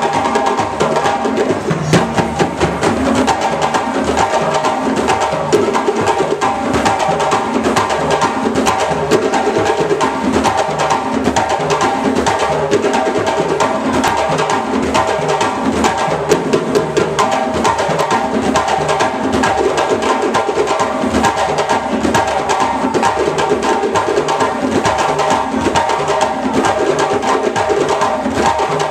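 Live ensemble of djembe hand drums played together in a fast, continuous, driving rhythm.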